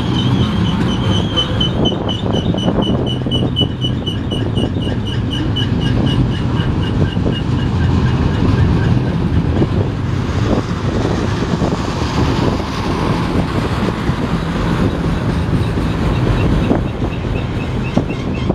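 Freight train of autorack cars rolling past close by: a steady rumble of wheels on rail, with irregular clicks as the wheels cross rail joints. Over the first half runs a high, pulsing squeal that slides slightly lower and fades out about halfway.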